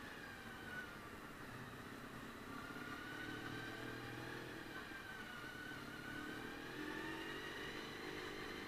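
Honda VFR400 NC30's V4 engine running under way, its revs falling at first, rising about two and a half seconds in, dipping around six seconds and climbing again near the end.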